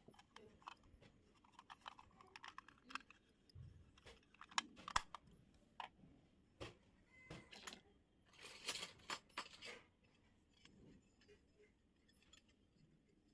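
Faint scattered clicks and taps of small toy kitchen pieces being handled, with a brief rustle about two-thirds of the way through.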